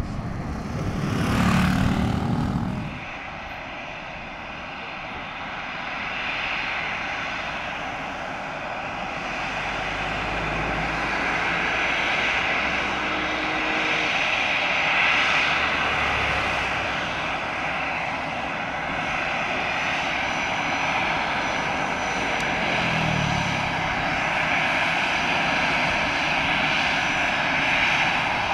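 Airliner engines running continuously with a steady whine, growing louder over the first ten seconds or so and then holding. A brief loud rush comes right at the start.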